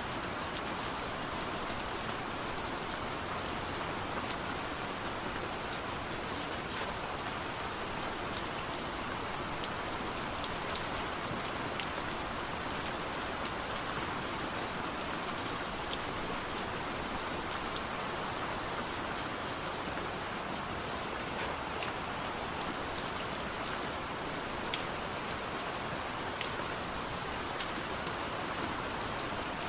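Steady light rain: an even hiss with many separate drops ticking sharply on a surface.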